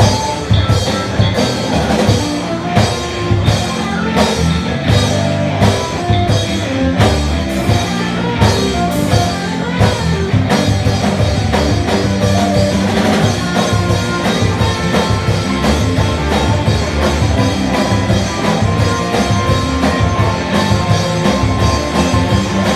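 Live rock band playing: electric guitars, bass guitar and a drum kit. The drum hits come about twice a second, then about four a second from roughly halfway through.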